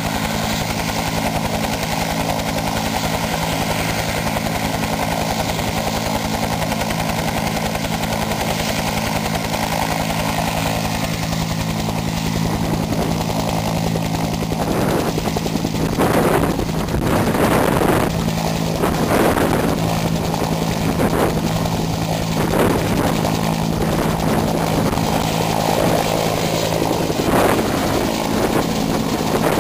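Bell UH-1 Iroquois (Huey) helicopter's single turboshaft and two-bladed main rotor running on the ground, then lifting off. About halfway through the sound grows louder and uneven, with irregular pulses of noise as it takes off and climbs away.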